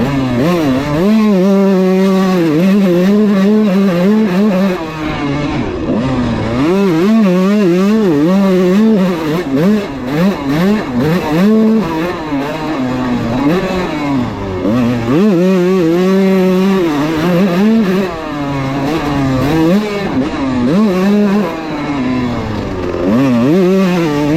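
Kawasaki KX125 two-stroke dirt bike engine being ridden hard, held near wide open for stretches of a few seconds. Between them the pitch repeatedly drops and climbs again as the throttle is chopped and reopened.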